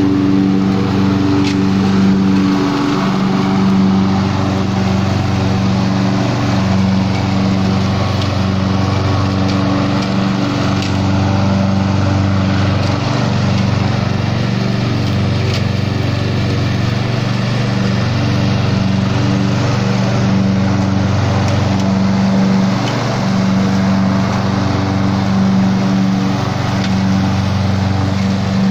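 AL-KO Solo T 16 103.7 HD-V2 ride-on garden tractor running steadily with the mower deck engaged, its engine hum and spinning blades drawing sawdust off the lawn into the rear collection bag.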